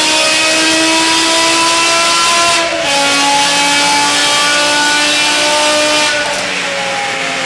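Sports car engine and exhaust under hard acceleration, the engine note climbing steadily. It upshifts twice, about two and a half seconds in and again near the end, the pitch dropping at each shift before it climbs again.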